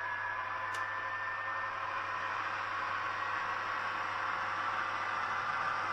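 H0 model of an ÖBB 2043 diesel locomotive running along the track, a steady whirring with a faint whine that slowly gets louder as it approaches. A single brief click about a second in.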